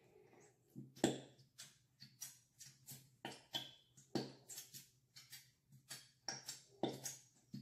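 Small plastic squeeze bottle of Elmer's glitter glue shaken and squeezed upside down to get the glue out, giving a run of sharp plastic clicks and knocks, two or three a second.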